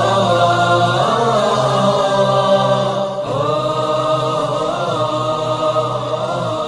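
Wordless choral music with long held chords over a steady low drone, moving to a new chord about a second in and again about three seconds in.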